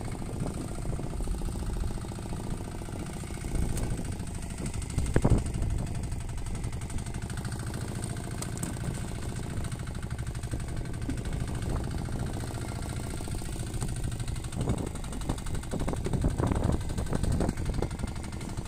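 Small fishing boat's engine running steadily with a low, knocking rumble. A single loud thump about five seconds in, and a few lighter knocks near the end.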